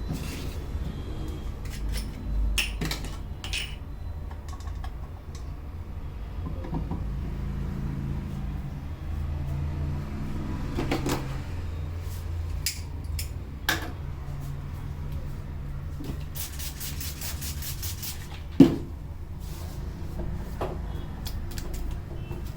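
Hand slaps, taps and clicks of an Indian head massage, scattered and irregular, with a quick run of light rapid taps and then one sharp, loud snap about three-quarters of the way through, over a steady low background rumble.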